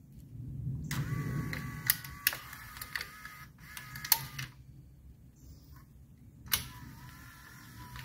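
Hirschmann electric power antenna motor, run on the bench from jumper leads: the motor whines as it drives the mast gear for a few seconds, with sharp clicks as the clips make contact. It stops, then starts running again after another click near the end.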